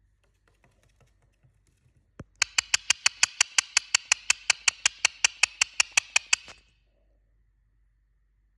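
Indian ringneck parrot making a rapid, even run of sharp clicks, about five or six a second, starting about two seconds in and stopping after about four seconds.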